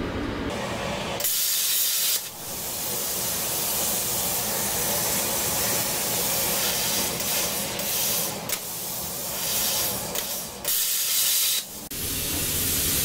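Longevity Forcecut 40D plasma cutter torch hissing steadily with its compressed-air flow, dropping out briefly a few times.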